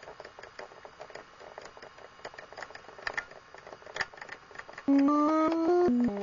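Faint, rapid mechanical clicking; about five seconds in, a loud electronic melody of short stepped notes cuts in.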